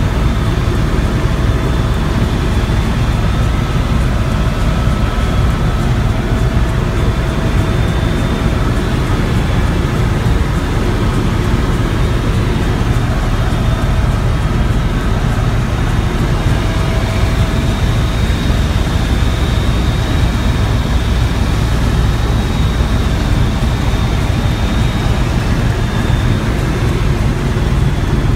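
Helicopter in flight heard from inside the cabin: a steady, loud drone of rotor and engine, with a thin high whine running above it.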